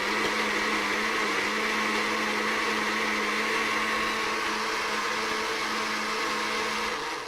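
Electric liquidizer (blender) running steadily at one speed, a constant motor hum, blending the curry sauce ingredients until the solid parts are broken down. It switches off abruptly near the end.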